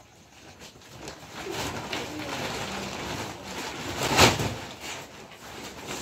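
Low bird calls, with a single sharp knock about four seconds in.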